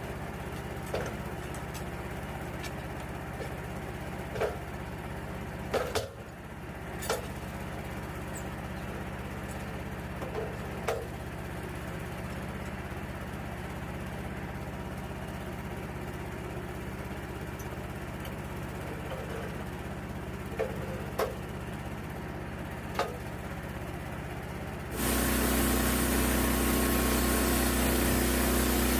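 Portable sawmill's gas engine idling steadily, with scattered light knocks and clanks. Near the end the engine revs up suddenly and much louder, as for the blade going into the log.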